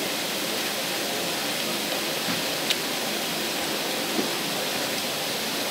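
Steady hiss of water spraying from a leak at a fire hydrant standpipe feeding the hose lines, with a faint click or two partway through.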